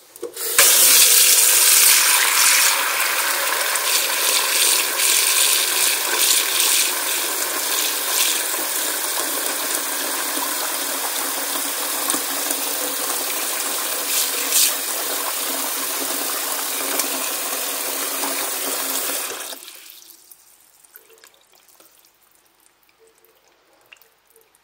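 Kitchen tap running full into a plastic bowl in a stainless steel sink, filling it with water to soak dried mushrooms; a steady gush for about nineteen seconds, then it is turned off. Faint small splashes follow as a hand moves the mushrooms in the water.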